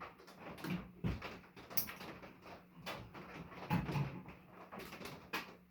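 Irregular clicks, knocks and scrapes of metal and plastic parts and tools being handled as a microwave is taken apart for scrap.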